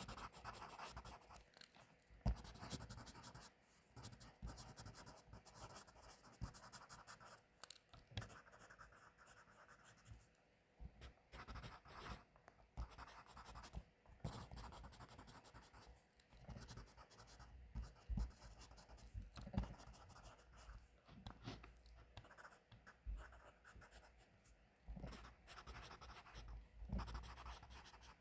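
Pencil scratching on paper in runs of irregular strokes, broken by short pauses.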